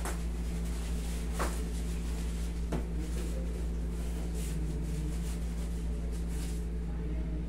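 Steady low hum of room tone, with a few light clicks and rustles from hands handling things, the first three about a second and a half apart.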